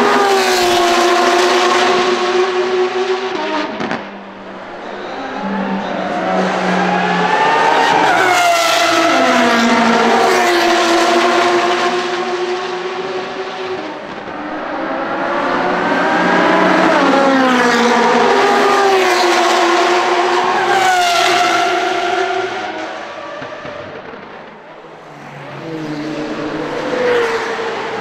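Straight-piped Porsche 992 GT3 RS with a Soul exhaust, its naturally aspirated flat-six engine running loud at high revs in a string of track flybys. Each time, the pitch climbs under acceleration and then drops away as the car goes past. The sound breaks off suddenly about four seconds in.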